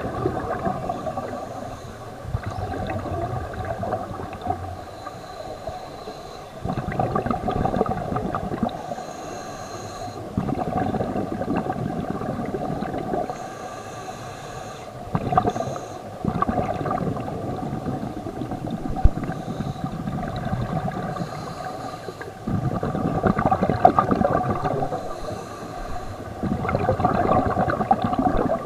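Scuba breathing heard underwater: exhaled air bubbling out of a regulator in rumbling bursts of two to three seconds. The bursts repeat every few seconds, with quieter pauses between breaths.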